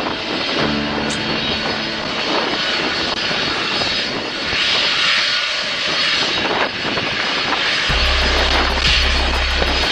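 Jet airliner engines at takeoff power on departure: a loud, steady rushing noise that brightens into a stronger hiss about halfway through.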